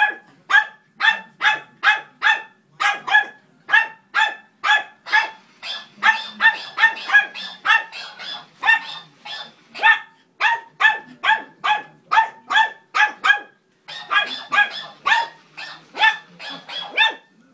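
Small dog barking rapidly and repeatedly at a toy hamster, sharp high-pitched barks about two to three a second, with a brief pause about three-quarters of the way through.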